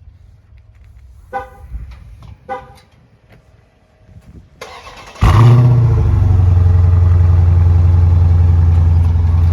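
Two short electronic beeps, then a 2020 Dodge Scat Pack's 392 (6.4-litre) HEMI V8 cold-starting on its stock exhaust with the mid mufflers still fitted. About halfway through it cranks briefly, catches with a loud flare and settles into a steady idle.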